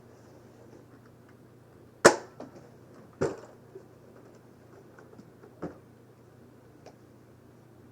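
Nerf blasters firing foam darts: three sharp snaps, the loudest about two seconds in, another about a second later and a softer one a few seconds on, with faint ticks between.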